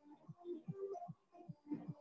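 Faint electronic background music: a short-note melody over a quick, steady beat.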